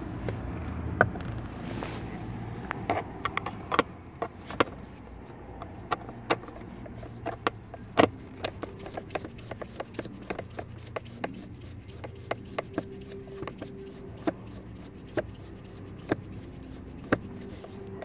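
Irregular sharp clicks and scrapes of a screwdriver tip working in the access holes on the back of a Nissan Qashqai J10 steering wheel, levering at the driver airbag's retaining clips to release it.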